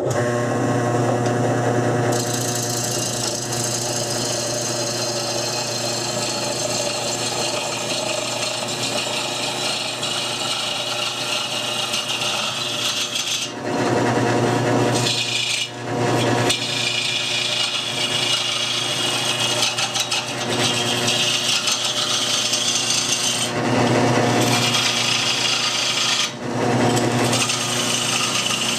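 Homemade wood lathe running with a steady motor hum while a hand-held turning tool cuts the outside of a spinning wooden bowl blank, a rough continuous hiss of shavings peeling off. The cutting sound shifts a few times as the tool moves across the bowl.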